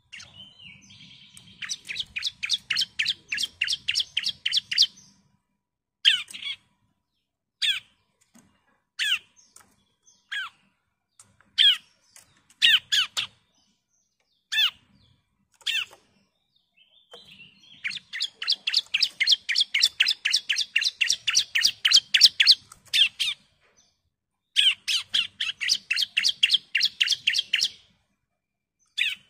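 Bar-winged prinia (ciblek) singing: long rapid series of sharp, high chip notes at about five a second, then single down-slurred notes about a second and a half apart, then two more long rapid series.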